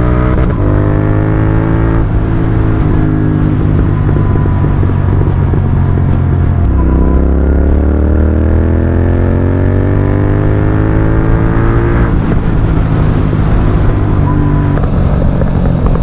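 Royal Enfield Continental GT 650's parallel-twin engine through a Red Rooster aftermarket exhaust, accelerating hard up through the gears. The pitch climbs, then drops at each upshift, about 2, 7 and 12 seconds in, and climbs again more slowly in each higher gear.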